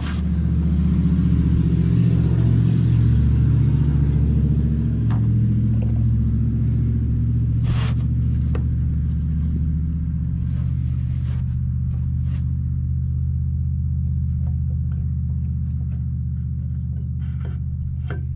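Steady low mechanical hum of a motor running, louder in the first few seconds and then settling a little, with a few light clicks over it.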